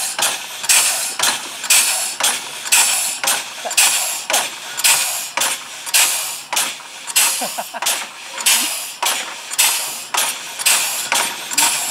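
Home-made twin-cylinder compressed-air locomotive, with tractor hydraulic rams for cylinders and home-made spool valves, running along the track and exhausting air in rhythmic hissing puffs, about two a second. It is working on low air pressure from an under-filled tank.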